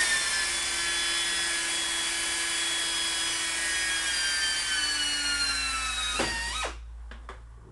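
Handheld power drill running under load as it bores a hole through a sheet-metal fuselage plate, its whine sinking slowly in pitch, then spinning down and stopping about six seconds in when the trigger is released.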